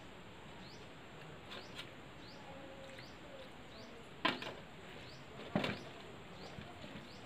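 Two sharp knocks of a small steel bowl against a steel thali, about four and about five and a half seconds in, as dal is poured onto rice. Behind them a high, short chirp repeats about twice a second.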